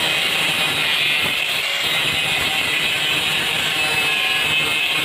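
Electric angle grinder with an abrasive disc grinding steel, running steadily under load with a high-pitched whine.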